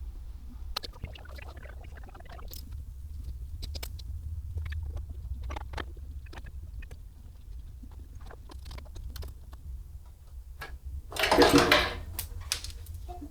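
Hands handling motorcycle headlight parts and tools: scattered light clicks and taps over a steady low hum, with a louder rustling clatter about eleven seconds in.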